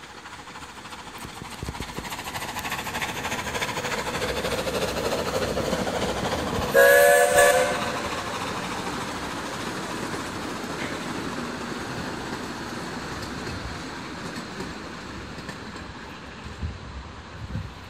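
Krauss-built 381 mm gauge miniature steam locomotive and its passenger cars running past. About seven seconds in, the locomotive sounds its whistle once, a blast of about a second with several tones at once, the loudest moment. The train's running noise then fades as the cars roll away.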